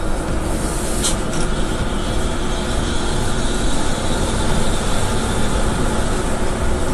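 Steady road, tyre and engine noise of a moving bus.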